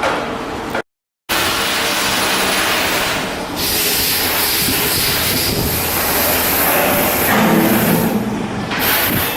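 Loud, steady shipbuilding work noise from tools and machinery. It drops out completely for a moment about a second in, and a high hiss joins from about three and a half seconds until near the end.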